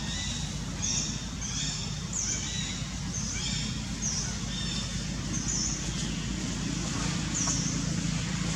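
Birds chirping: short high chirps repeated about once a second, over a steady low rumble.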